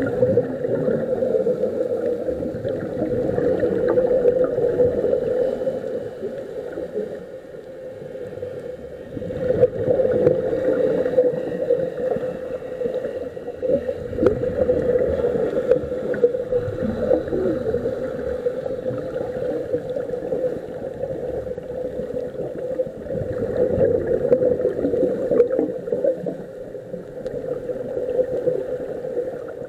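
Scuba regulator exhaust bubbles gurgling and rumbling, picked up underwater through the camera housing, swelling and easing every few seconds with the divers' breaths.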